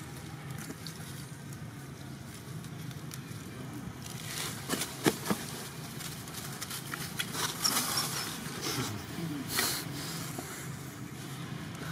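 Dry leaf litter crackling and rustling under macaques moving over it, starting about four seconds in, with a sharp snap soon after, over a steady low hum.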